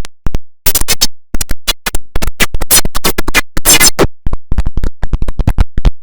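The IBM OS/2 Warp 3 shutdown sound, heavily edited into a stutter: the audio is chopped into many short fragments, several a second, each cutting off sharply with silence between, much like record scratching.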